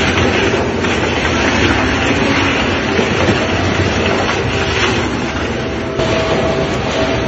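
Two-shaft tyre shredder running under load, its counter-rotating cutter shafts tearing a tyre into chips with a loud, steady grinding clatter and rumble. The sound shifts abruptly about six seconds in.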